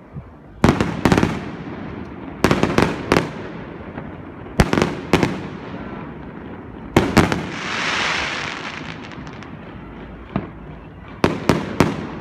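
Aerial fireworks bursting: sharp bangs in twos and threes, each trailing off in an echo. About two-thirds of the way in, a hissing crackle swells and fades, and near the end comes a quick run of bangs.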